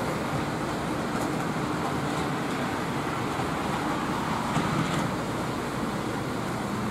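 O gauge three-rail toy trains running on the layout, making a steady running noise over even room noise.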